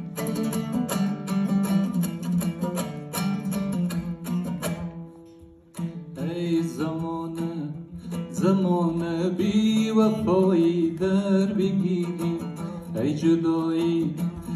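A dambura, the Afghan two-string long-necked lute, strummed in quick, rhythmic strokes. After a brief pause about five seconds in, a man begins singing a wavering melody over its accompaniment.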